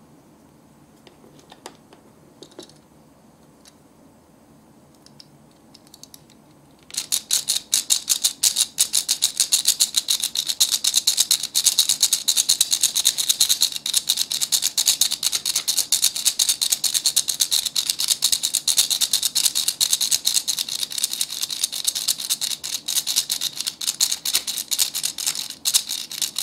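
Plastic toy hand mixer working its beater in a small plastic bowl, its mechanism giving a loud, rapid, steady clicking rattle that starts about seven seconds in and stops abruptly at the end. Before it, a few faint taps.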